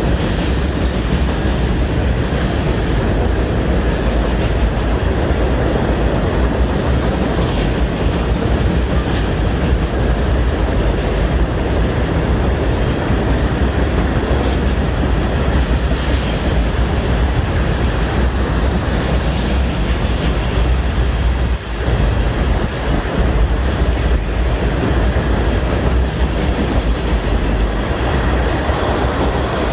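Florida East Coast Railway freight train rolling past at close range: a loud, steady rumble of wheels on the rails that dips briefly about two-thirds of the way through.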